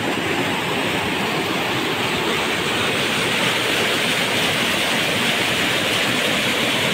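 Steady rush of fast-flowing, rain-swollen muddy river water.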